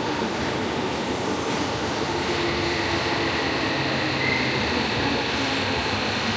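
Electric commuter train running along a station platform: a steady rumble of wheels and motors, with a faint high wheel squeal coming in about four seconds in. The train is out of service and not in passenger use.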